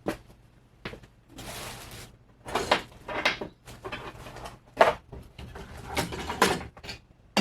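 Objects being handled and moved about on a workbench: a run of separate knocks and clicks with a short scraping rustle about a second and a half in, the sound of rummaging for something.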